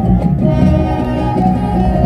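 High school marching band playing, brass holding sustained chords over a strong low brass and sousaphone bass.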